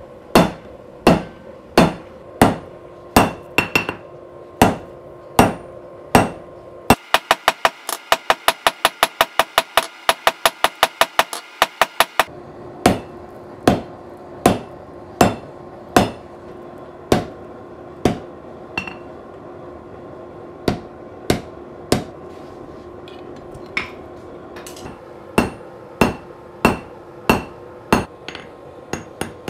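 Hand hammer striking a red-hot mild steel bar on a steel anvil, forging tong jaws: steady blows at about one and a half a second, with a run of quicker, lighter strikes of about five a second in the middle.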